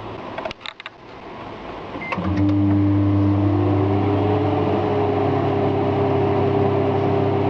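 Microwave oven switched on and running on high: a few clicks, a short high tone about two seconds in, then a steady hum of the magnetron and turntable motor, its pitch shifting up slightly a couple of seconds later.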